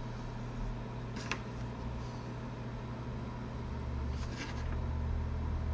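Steady low mechanical hum, with a faint click about a second in and a soft scraping around four seconds from small handwork cutting hot-melt tip glue with a razor blade.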